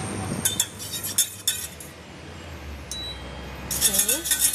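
Wire balloon whisk clinking against the sides of a stainless steel saucepan as it stirs butter melting into water: two spells of quick metallic clinks with a short ring, about half a second in and again near the end.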